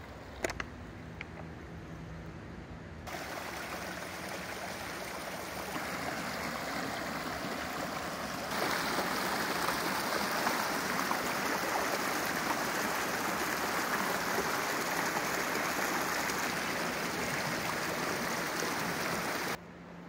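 Small rocky brook rushing and splashing over stones. The steady water noise grows louder in two steps, about three and eight seconds in, and cuts off suddenly near the end. A brief click or two comes just after the start.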